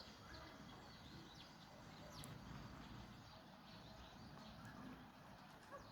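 Faint, scattered chirps of sparrows, short falling notes coming every second or so over a low background hiss.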